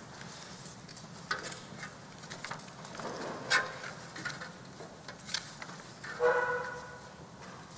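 Quiet room with scattered light knocks and rustles of a seated congregation settling into wooden chairs, and one brief pitched sound about six seconds in.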